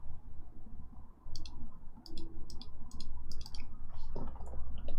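Irregular clicking of computer keys and mouse buttons, about a dozen quick clicks in uneven clusters starting just over a second in, over a faint low hum.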